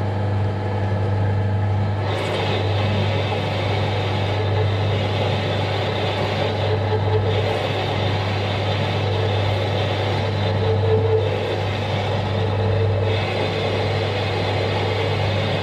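Small metal lathe running steadily with a low hum while a parting tool cuts into the spinning workpiece, parting it off.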